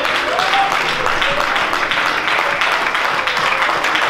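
Church congregation clapping and calling out in praise, a dense steady applause with a few voices rising above it.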